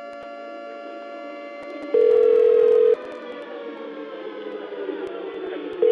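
Telephone ringback tone, a call ringing unanswered: a steady tone lasting about a second, heard twice about four seconds apart. Underneath are droning tones that begin sliding slowly down in pitch after the first ring.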